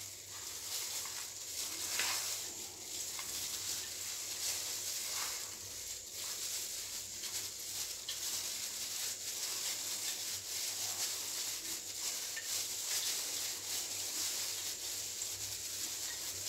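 Plastic food-prep gloves crinkling and breadcrumbs rustling in irregular little crackles as hands press a breadcrumb coating onto a scotch egg. A steady high hiss runs underneath.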